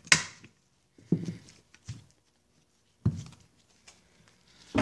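Cylinder head of a two-cylinder Johnson 15 HP outboard powerhead being pried loose and lifted off with a screwdriver: a sharp metal click just after the start, then four or five dull knocks about a second apart as the head and parts are handled and set down.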